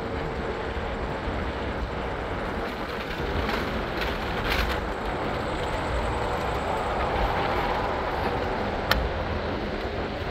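Steady running noise of a PATH train under way, with a single sharp click near the end.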